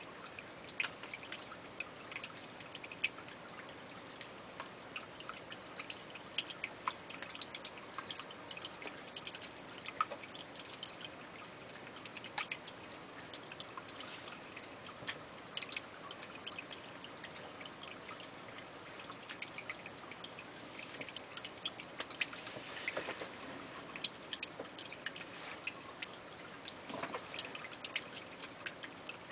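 Water trickling steadily, with scattered small drip-like clicks.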